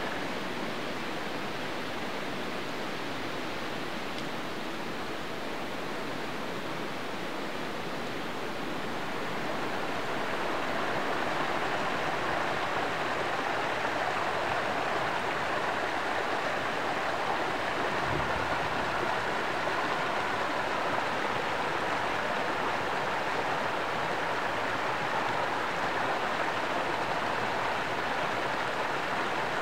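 Small woodland stream rushing steadily over a low riffle of rocks. It grows louder about a third of the way in, then holds even.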